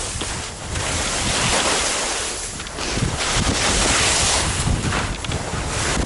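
Wind rushing over the microphone while skis scrape and hiss across snow on a downhill ski run, the noise swelling and easing with the turns.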